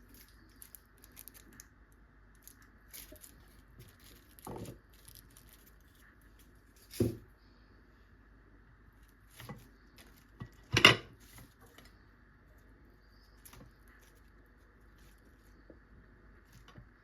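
Scattered small clicks and knocks of objects being handled, the loudest about eleven seconds in, over a faint steady hum.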